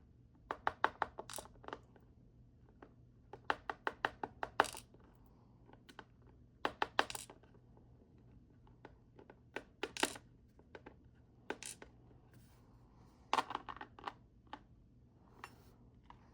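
Small metal parts of a disassembled 6-pin dimple lock clinking and clicking against each other and a hard surface, in short rapid clusters of sharp clicks with single clicks in between.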